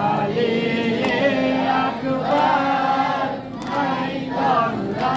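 Men's voices chanting a noha, a sung Muharram mourning lament, in drawn-out phrases with short pauses between them.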